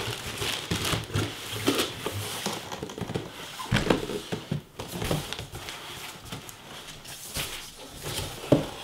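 Cardboard shipping box and its packing, a cardboard insert, plastic bag and foam, being handled and moved, with scraping and rustling broken by irregular knocks and thumps.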